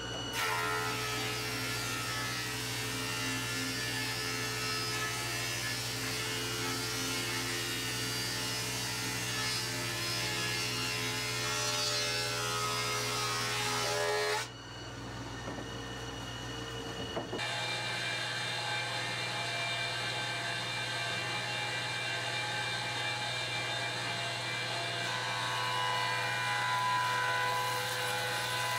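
Stationary woodworking machines running with a steady motor hum, first a thickness planer and then a jointer. The sound changes abruptly a little before halfway.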